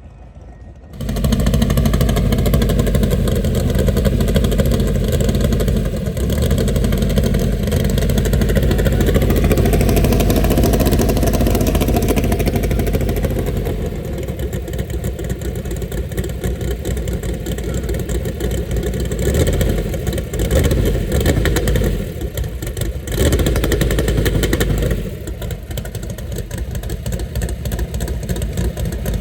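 Naturally aspirated (all-motor) Mustang drag-car engine running loud at high revs, starting abruptly about a second in, with several swells and dips in revs and a drop near the end.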